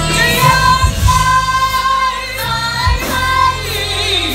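Live choir singing with a band: voices hold long notes with vibrato over a steady bass, with a few drum hits.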